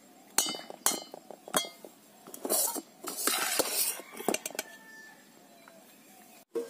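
Perforated stainless-steel ladle clinking against steel plates and a steel bowl as cooked rice is served: three sharp, ringing clinks in the first second and a half, then a stretch of scraping, then a few lighter clicks.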